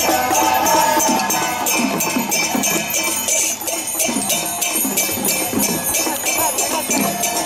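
Traditional temple ritual music: a rapid, continuous run of jingling metal percussion over a wavering melodic line.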